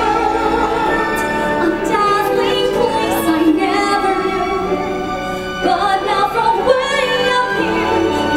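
Live singing of a Broadway show tune, with a vocalist holding wavering sustained notes over instrumental accompaniment.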